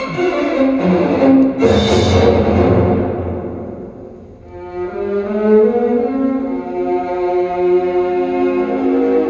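Orchestral music with bowed strings, played from a vinyl record through large horn loudspeakers and heard in the room. A heavy stroke comes just under two seconds in and dies away over about two seconds. Sustained string notes then swell up from about halfway.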